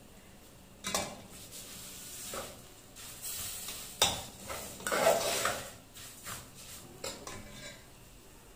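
Steel spoon stirring and scraping vermicelli and crushed coconut as they roast in ghee in a metal pot, with sharp clinks of the spoon against the pot. The loudest clinks and scraping come about four to five and a half seconds in, and it goes quieter near the end as the spoon comes to rest.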